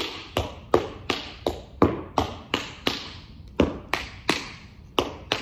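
Tap shoes striking a wooden studio floor: a steady run of sharp taps, about three a second, as a tap combination is danced.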